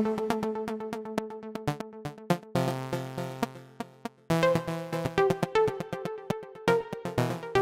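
Electronic music: synthesizer notes over a fast, steady drum-machine beat, with a brief break about four seconds in before it resumes.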